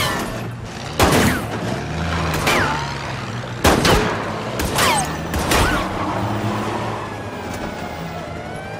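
Gunshots, about five spread over some six seconds, three of them loud, each followed by a brief falling ring, over a low steady drone. Near the end a siren starts to rise.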